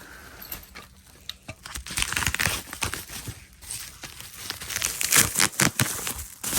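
Plastic packaging crinkling and tearing as it is handled, with scattered sharp clicks and rustles that come in louder clusters about two seconds in and again about five seconds in.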